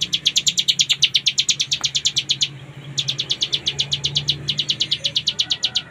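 Caged ciblek gunung (a prinia) singing a long, fast rattling run of high notes, about ten a second, the full continuous song that bird keepers call ngebren. The run breaks off briefly about two and a half seconds in and again for a moment past four seconds.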